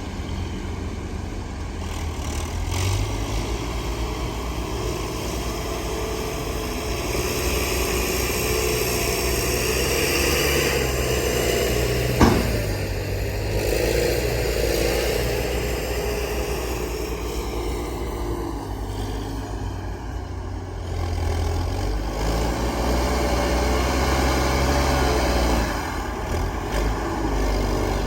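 Heavy diesel earthmoving machinery running, the engine note rising and falling, with one sharp clank about twelve seconds in.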